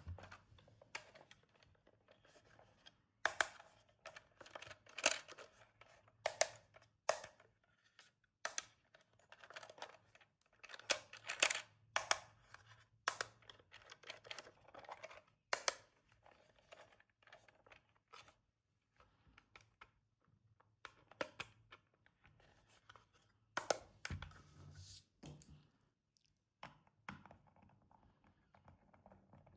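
Toy-car packaging being handled and opened by hand: irregular clicks, scrapes and tearing of cardboard and plastic.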